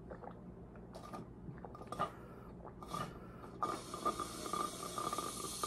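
Drinking from a thin plastic bottle: gulps and scattered clicks of the plastic, then a dense, continuous crackling for the second half as the bottle crinkles and gives under the suction.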